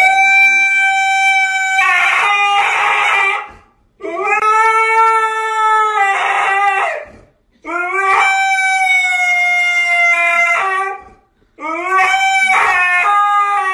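A dog howling in four long, drawn-out howls of about three seconds each. Each howl rises at the start and then holds a steady pitch, with short pauses between them.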